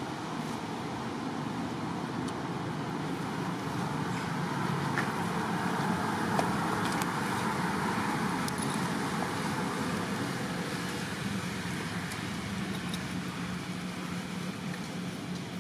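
Road traffic noise: a steady hum of passing vehicles that swells to its loudest around the middle as a vehicle goes by, then eases off.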